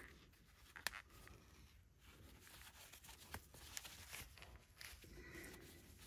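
Near silence with faint handling noise: gloved hands working a new starter rope into a recoil starter's pull handle, with a sharp click a little under a second in and a few softer ticks later.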